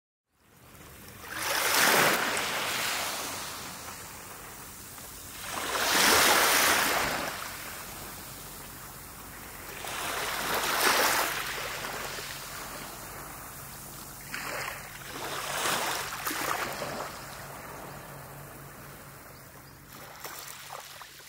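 Sea waves washing onto a shore. Three large swells come a few seconds apart, each building and then falling away, followed by smaller ones that fade toward the end.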